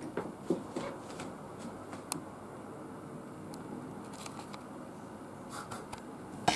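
Quiet room tone in a small room, with a few faint ticks and soft rustles of movement.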